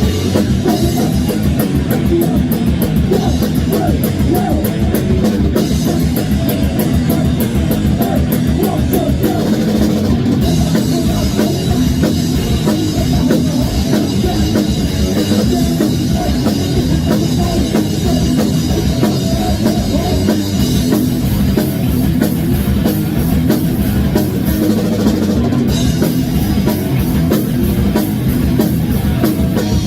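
Thrash metal band playing their song live in rehearsal: fast, loud drum kit with distorted electric guitars. The drumming and cymbal pattern change about ten seconds in and again about twenty seconds in.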